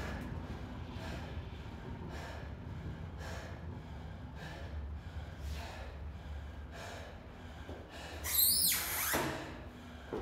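A worn-out athlete breathing hard and fast, about one breath a second, while recovering from an all-out workout. About eight seconds in comes a brief, louder swish.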